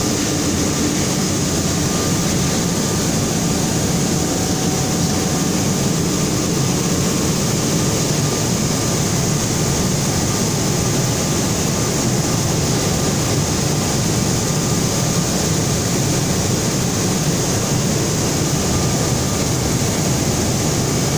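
Mario Costa fabric brushing machine running: a loud, steady mechanical drone with a faint high whine in it.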